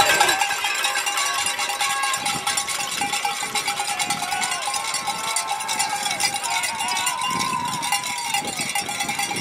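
Cowbells ringing steadily at the trackside, with spectators' shouts and cheers, most of them about seven to eight seconds in.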